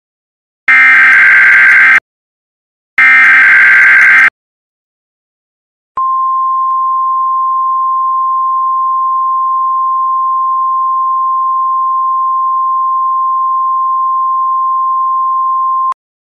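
Emergency Alert System alert. First come two short bursts of screeching digital data tones, the SAME header. After a brief gap the attention signal follows: a single steady high tone held for about ten seconds, which cuts off abruptly.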